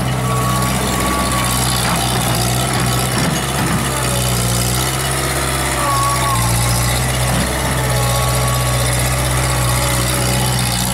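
Hydra-Mac Commander C-4200 tracked skid-steer loader's engine running steadily as the machine drives and turns, with a few brief high whines over the engine hum.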